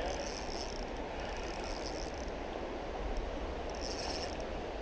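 Steady rush of flowing creek water, with wind rumbling on the microphone. A high buzz comes and goes near the start and again about four seconds in.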